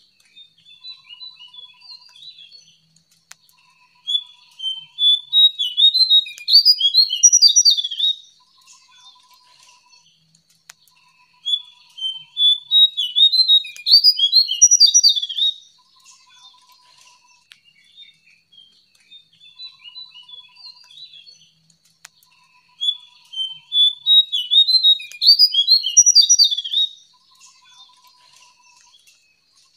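Jongkangan songbird singing in three loud bouts of rapid, tumbling high twittering, each about four seconds long, with softer chirps in the pauses between.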